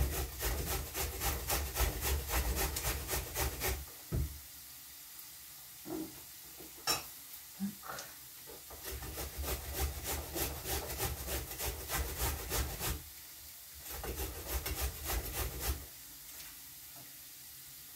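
Carrot grated by hand on a flat grater over a cutting board: quick scraping strokes, about four a second, in three runs with pauses between, and a few single knocks in the gaps.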